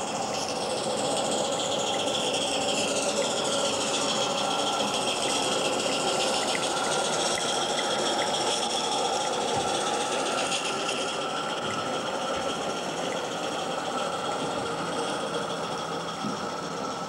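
Garden-scale live-steam locomotive running with a train of coaches: a steady hiss and rumble of the engine and the wheels on the track. A high whine falls in pitch over the first few seconds.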